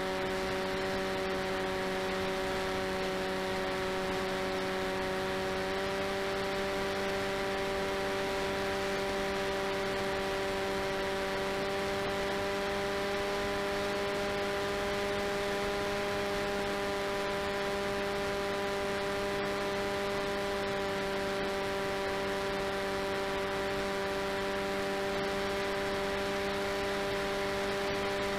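RCTimer 5010 630KV brushless outrunner motor and propeller of an FPV delta-wing plane in flight, heard through the onboard camera as a steady whine over wind rush. The pitch rises slightly about six seconds in.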